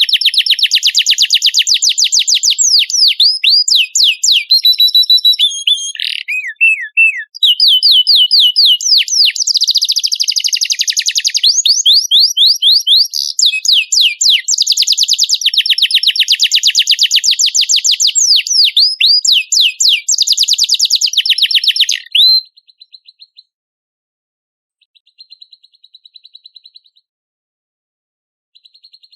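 Songbird singing loudly in fast trills and runs of rapid sweeping whistled notes, with brief breaks; the song stops about 22 seconds in, leaving only faint, short bursts of rapid buzzy chirping.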